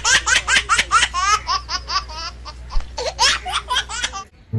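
Loud, hearty laughter in rapid repeated 'ha' bursts, about five a second, breaking off about four seconds in.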